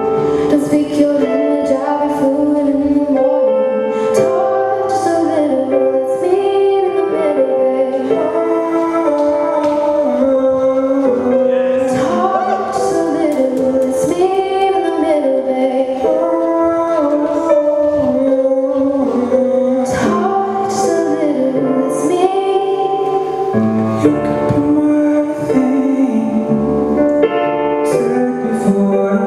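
A song with a singing voice over instrumental backing, playing steadily throughout.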